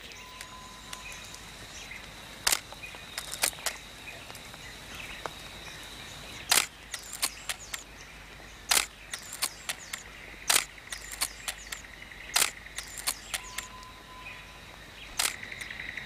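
Single-lens reflex camera shutter firing again and again: about six sharp clicks a couple of seconds apart, with lighter clicks between them. A steady high insect drone runs behind, with a short whistled note near the start and again near the end.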